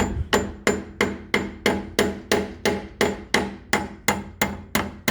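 Hammer tapping a replacement pin into a rotary tiller's gear-shifting shaft, about three steady strikes a second, each metal blow ringing briefly. The pin had been missing, which is why the tiller would not shift gears.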